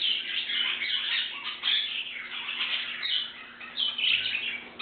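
A room full of pet birds (canaries, budgerigars and cockatiels) chirping and calling over one another in a steady stream of short, high chirps.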